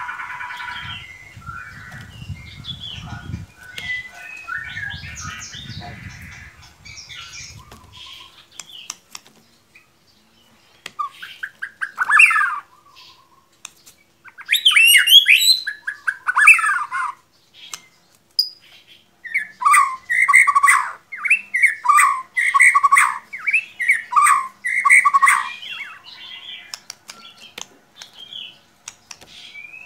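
White-rumped shama (murai batu) singing: loud whistled and chattering phrases, then a rapid run of repeated two-note calls, about two a second. This is a lure recording meant to trigger a bird that only twitters into full song. A low, pulsing rumble with faint chatter comes before the song.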